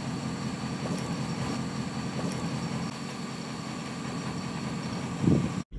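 AM General Hummer H1 crawling slowly over rocks, its engine running steadily at low revs, with a brief louder surge about five seconds in before the sound cuts off suddenly.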